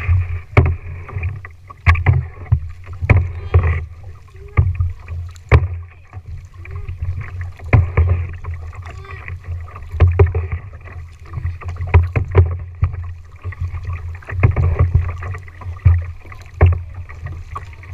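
Kayak paddling: a double-bladed paddle dipping and pulling through the water in a steady rhythm, about one stroke a second, each with a splash and sharp knocks.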